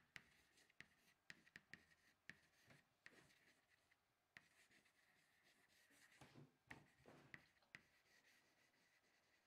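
Faint chalk writing on a chalkboard: short, irregular taps and scratches as the letters are written, with a denser run of strokes about six to seven seconds in.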